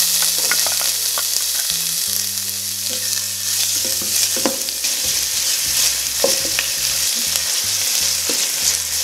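Diced red onion frying in hot oil and rendered pork fat in a stainless steel pot, a steady sizzle with scattered knocks and scrapes of a wooden spoon stirring it. The onion is being fried until translucent.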